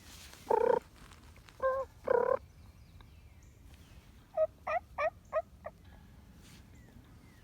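Wild turkey calling: three loud calls in the first two and a half seconds, then a quick rolling gobble of about five notes near the middle.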